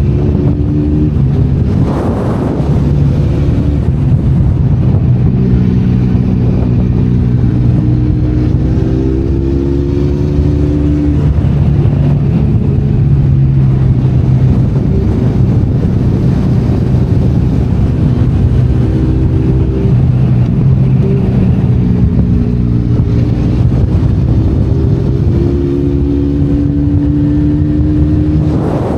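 Benelli Leoncino 500 Trail's parallel-twin engine running while riding, its pitch rising and falling gently with the throttle. A brief burst of noise cuts in about two seconds in and again near the end.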